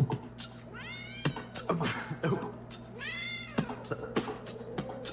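A cat meowing twice, two drawn-out calls that rise and then fall, over a series of sharp clicks.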